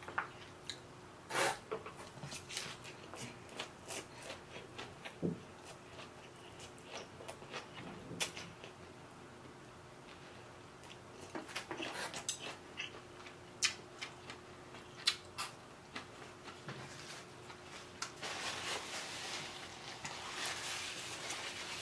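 Close-miked eating sounds: a mouthful of rice vermicelli noodles with grilled pork and raw vegetables being chewed, with scattered soft wet mouth clicks. Near the end comes a soft rustling as a paper napkin is pressed to the mouth.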